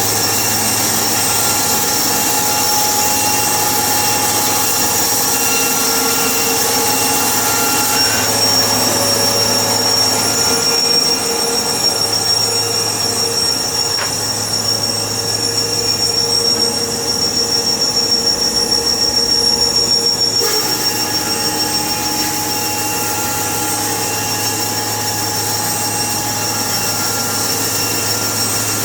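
Sawmill running: a steady machine sound with a constant high whine over a low engine hum. The sound changes between about 8 and 20 seconds in.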